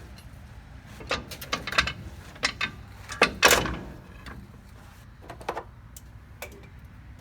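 Metal clinks and clanks from truck air brake shoe parts being handled and worked into place, with a louder scraping clank about three seconds in and a few light clicks after it.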